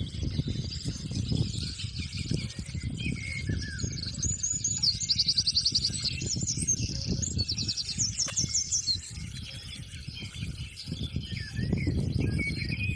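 Several birds singing and chirping, with a few fast rattling trills about five and seven seconds in, over a steady low rumbling noise.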